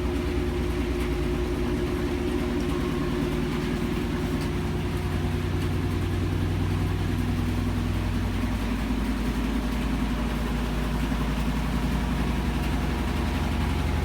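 GE GTW460ASJ4WW top-loading washing machine in high-speed spin, its motor and drum running with a steady low hum and a fast rhythmic pulsing. The washer is shaking hard, which GE says is normal.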